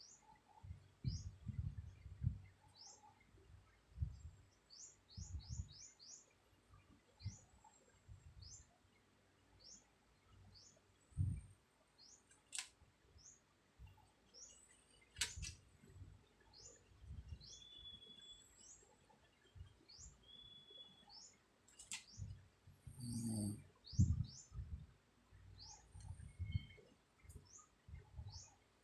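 Small birds chirping: many short, high chirps every second or so, with two longer whistled notes in the second half. Underneath are irregular soft low sounds of a sleeping person's breathing, and two sharp clicks come about halfway through.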